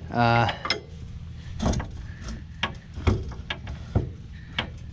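Irregular metal clicks and knocks from hitch hardware being handled, about a dozen spread over the few seconds, over a low steady hum, with a short pitched squeak-like sound right at the start.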